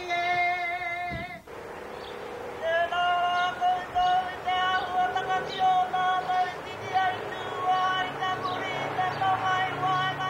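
Karanga, the ceremonial call of Māori women on a marae: long, high, held vocal calls that waver and fall away at the end of each phrase. About a second in, the voice cuts off suddenly, and a woman's call answers shortly after.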